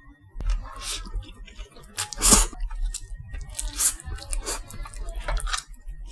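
Close-up slurping and chewing of fried instant noodles, in irregular wet bites and smacks, the loudest about two seconds in.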